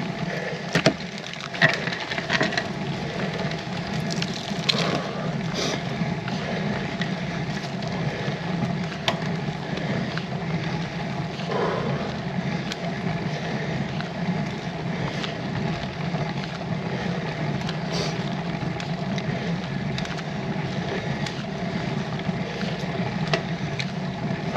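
Road bike climbing slowly up a steep lane: steady rolling and drivetrain noise mixed with wind buffeting the microphone, and a few sharp clicks.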